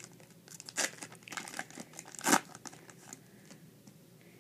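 Yu-Gi-Oh booster pack's foil wrapper crinkling and tearing as it is handled and opened, in irregular crackles with the loudest a little over two seconds in, then dying down near the end.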